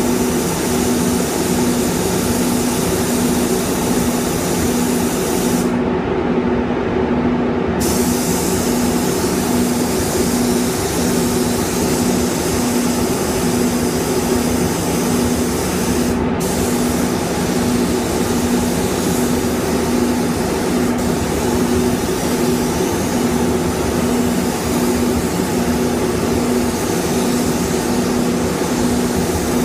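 Hiss of compressed air and paint from a gravity-feed spray gun spraying a car panel, over a steady machine hum. The hiss stops for about two seconds a few seconds in, as the trigger is let go, and again very briefly around the middle.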